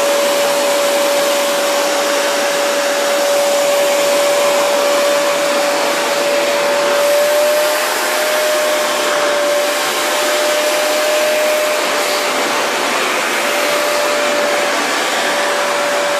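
Vacuum cleaner running steadily: a loud, even rush of air with one steady motor tone through it that wavers slightly in pitch.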